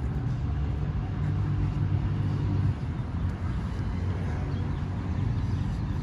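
Street traffic: a motor vehicle's engine runs with a low, steady hum that drops away about two and a half seconds in, over a continuous city traffic noise.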